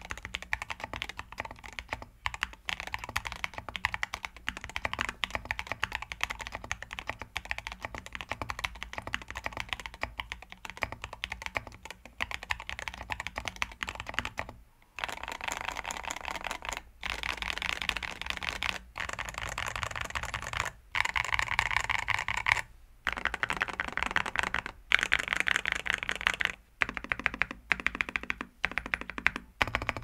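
Fast, continuous typing on a mechanical keyboard fitted with Cerakeys V2 ceramic keycaps and Gateron Cream Soda linear switches in an aluminium KBDFans Tofu65 2.0 case. Keystrokes clack in quick succession, broken by brief pauses every two seconds or so in the second half. It is a typing sound test of the ceramic keycaps, which give what the typist hears as a fuller sound.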